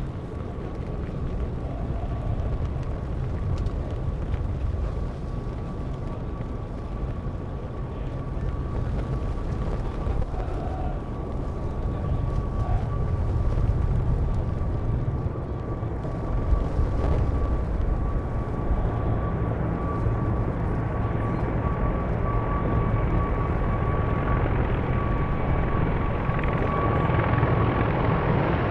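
Approaching military helicopters: a low rumble with a steady high whine that slowly grows louder, mixed with wind rumble on the microphone.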